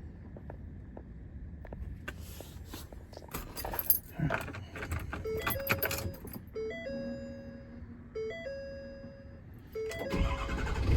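Keys jangling and clicks in a truck cab, then a repeating electronic dashboard chime from about five seconds in. About ten seconds in, the Ford F550's 6.7 Power Stroke diesel cranks and starts, settling into a steady, louder running.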